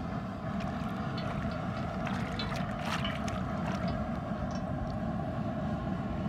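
A steady low rumble, with light knocks and rustles of small slit brinjals being scooped by hand in a steel bowl between about two and three seconds in.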